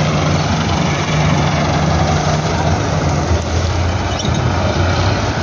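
Massey Ferguson 375 tractor's diesel engine running steadily close by, a constant low hum under a rough mechanical noise.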